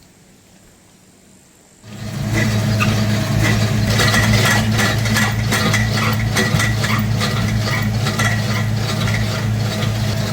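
A motor starts abruptly about two seconds in and runs steadily, with a low hum and a busy clicking rattle over it.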